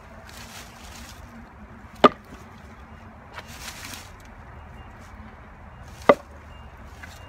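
A steel splitting maul strikes a firewood round twice, about four seconds apart, each a sharp, loud wooden chop. Softer rustling and handling of split wood comes between the strikes.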